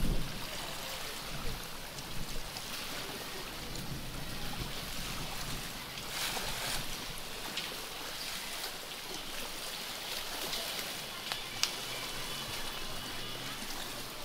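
Harbour-side ambience: a steady wash of water lapping and wind on the microphone, with low rumbling gusts near the start and a single sharp click late on.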